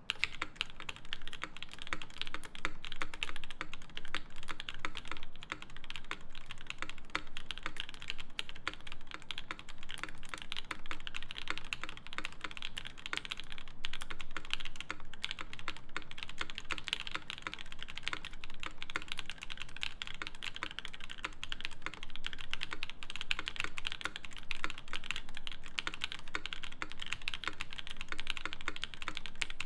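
Continuous typing on a Kyuu mechanical keyboard fitted with lubed Creampaca linear switches, an aluminium plate and GMK keycaps: a dense, steady stream of keystrokes running together.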